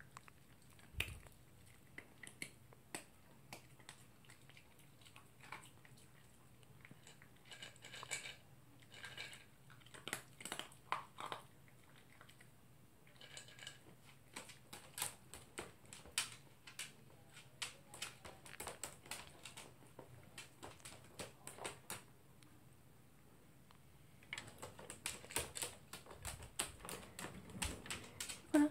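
Toy poodle eating dry kibble from a plastic slow-feeder bowl: faint crisp crunches and clicks of kibble against the bowl, coming in clusters with short pauses.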